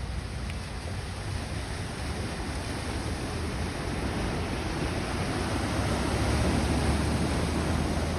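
Steady rushing noise of rain and moving floodwater, slowly growing louder.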